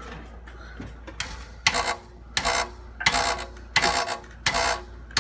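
Loose catalytic converter heat shield struck about six times, roughly every three-quarters of a second, each tap setting off a short metallic rattle. The rattle comes from the shield itself vibrating loose while its bolt stays tight.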